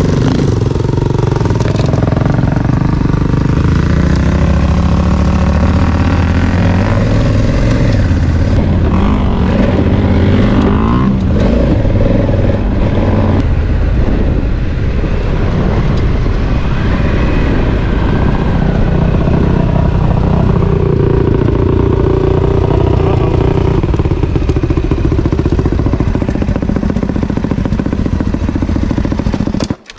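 Honda Africa Twin's parallel-twin engine running as the bike is ridden, its pitch rising and falling with the throttle, then cutting off abruptly near the end.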